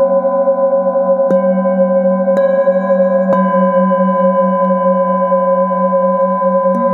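Metal singing bowl struck four times with a wooden mallet, each strike renewing a long, overlapping ringing hum whose lowest tone wavers in a slow beat.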